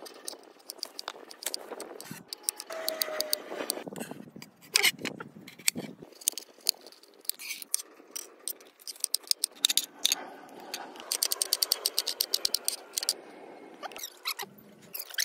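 Kitchen knife cutting vegetables on a wooden cutting board: irregular sharp taps, then a fast, even run of rapid chops in the second half.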